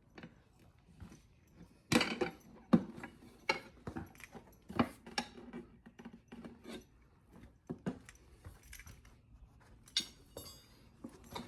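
Metal tire spoons clinking and scraping against a motorcycle wheel rim as the tire bead is levered off the rim by hand. The knocks come at irregular intervals, loudest about two seconds in, with a short run of ringing clinks near the end.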